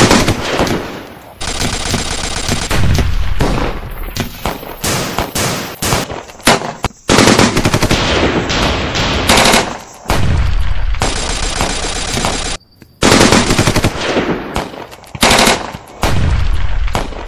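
Handguns firing in long rapid volleys, shot after shot packed closely together, with brief breaks between the bursts.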